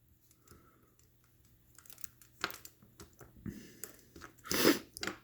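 Scattered small clicks, taps and crinkling from handling wires and small electronic parts on the bench, with one louder rustle about four and a half seconds in.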